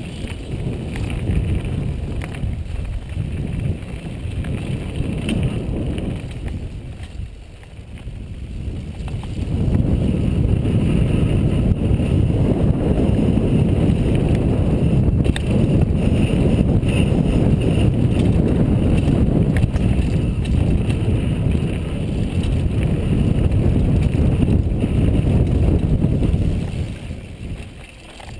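Wind buffeting the helmet camera's microphone along with the rumble of tyres on a dirt trail as a mountain bike descends at speed. The noise drops back twice, briefly about seven seconds in and again near the end, and is at its loudest through the long middle stretch.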